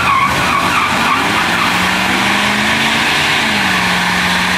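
Chevrolet 454 SS pickup doing a drag-strip burnout: its 454 big-block V8 revs up and is held at high revs while the rear tires spin and squeal on the pavement. The engine pitch climbs over the first couple of seconds, then holds steady.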